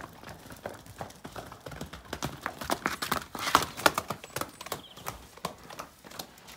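Horse hooves clopping on a wet concrete yard as a horse walks into its shelter: an irregular run of knocks, loudest about three and a half seconds in.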